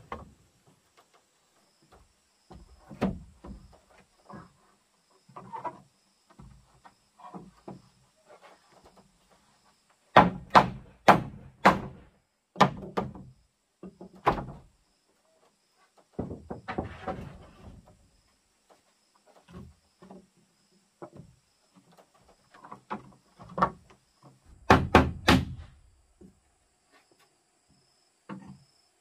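Wooden planks knocking and thudding as they are handled and set down, with bursts of sharp hammer blows nailing boards, several in quick succession around the middle and again near the end.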